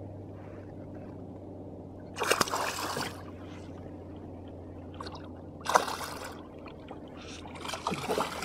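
Water splashing three times, once about two seconds in, once near six seconds and once near the end, as a released muskie thrashes at the surface and swims off beside the boat. A steady low hum runs underneath.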